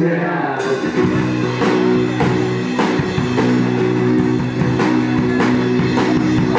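Live rock band playing: guitar holding sustained chords over a drum kit keeping a steady beat of about two strokes a second.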